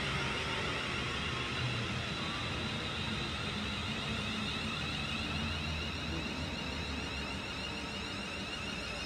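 London Midland Class 350 Desiro electric multiple unit running slowly into the station on the far line. A whine from its traction motors sits over a steady rumble of wheels on rail, and the sound eases off gradually as the train slows.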